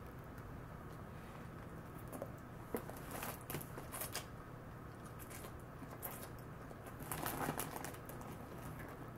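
Faint mouth noises of someone slurping and chewing noodles: a few short clicks and wet smacks, clustered about three to four seconds in and again around seven seconds in.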